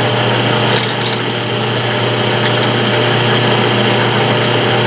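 Metal lathe running steadily with a constant hum, between cutting passes. A couple of light, sharp clicks come about a second in as the carriage handwheel is worked.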